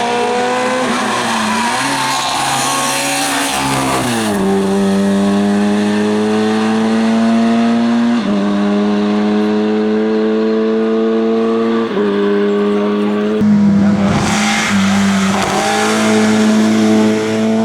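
VW Golf Mk1 rally car's four-cylinder engine at full throttle, heard from inside the car, climbing steadily through the revs with sharp drops at gear changes about four and eight seconds in and again around twelve and thirteen seconds, then pulling hard again. A loud hiss of tyre noise rises over it from about two seconds in and again from about fourteen seconds in.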